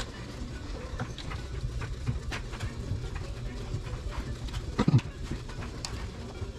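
Metal parts and tools clinking and knocking as a turbocharger is handled and fitted to an engine, over a low background rumble, with one louder thud about five seconds in.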